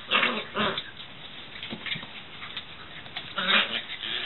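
Wheaten terrier puppies playing and giving short vocal sounds in bursts: a quick cluster in the first second and another about three and a half seconds in.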